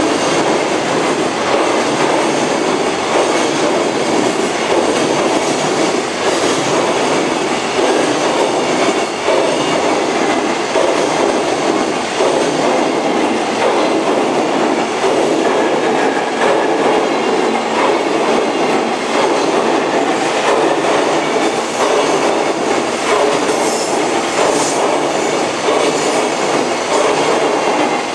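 Container wagons of a freight train passing at speed, a steady, loud run of steel wheels on the rails.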